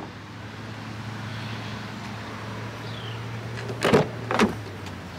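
A steady low hum, with two sharp knocks about half a second apart near the end.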